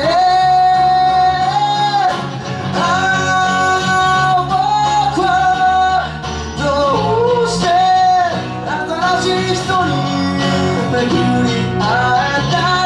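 A small live band plays: a male vocalist sings long held notes over a strummed acoustic guitar, an electric guitar and an electric bass.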